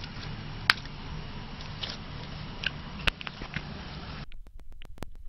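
Polyethylene wrapping handled by hands, giving a few sharp crinkles and clicks over a steady low hum. About four seconds in, the hum stops and a quick run of clicks follows.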